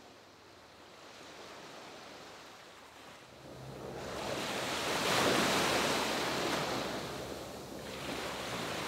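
Sea waves: a long surge of surf that swells to its loudest about five seconds in and then slowly falls away.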